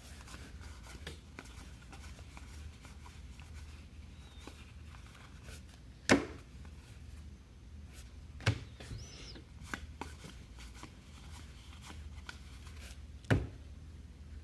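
Objects being moved and set down on a tabletop: light clicks and handling noise with three sharp knocks, about six, eight and a half and thirteen seconds in, over a steady low hum.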